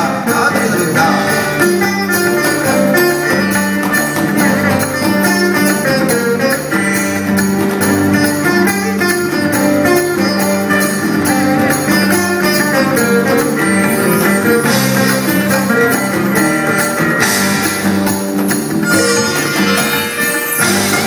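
Live acoustic fusion ensemble playing an instrumental piece: sitar and acoustic guitars over cajón and drums, with a steady beat.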